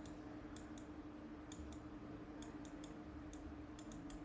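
Faint, irregular clicks, often in quick pairs, from the pointing device used to handwrite letters on screen, one click with each pen stroke. A steady low hum runs underneath.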